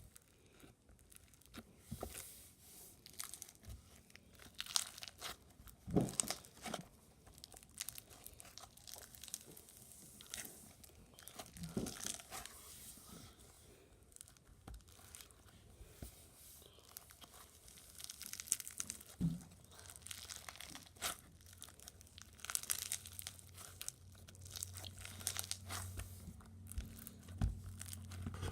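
Slime being worked by hands: squished, stretched and poked, with irregular crackles, pops and crunches. A low steady hum comes in near the end.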